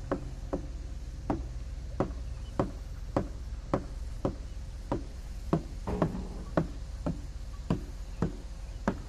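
Footsteps on railway ballast at a walking pace: short sharp knocks, roughly one every half second, over a steady low rumble.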